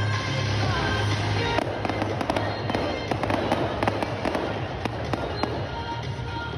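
Fireworks display going off: many sharp cracks and bangs in quick, irregular succession starting about a second and a half in, over music playing.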